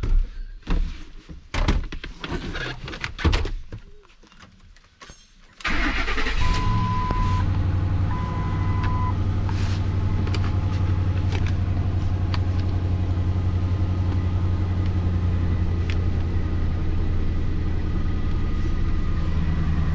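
A few clicks and knocks, then the Lincoln MKT's V6 starts suddenly about six seconds in and settles into a steady idle. Two short chime beeps sound soon after it starts. The engine is idling with a misfire, which the mechanic feels as a shake and later traces to cylinder 5.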